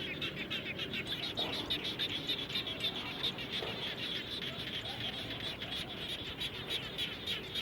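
A chorus of many frogs calling after rain: a dense, fast run of high pulsing calls, with lower calls underneath, steady throughout.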